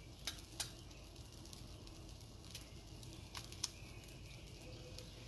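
Eggs being cracked for fried rice over a hot flat-top griddle: a few short, sharp cracks and taps over a faint steady sizzle.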